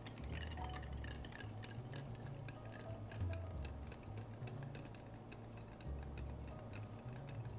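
Bar spoon stirring ice in a rocks glass: a rapid, uneven run of light ticks and clinks of ice and spoon against the glass. Faint background music with a low bass line underneath.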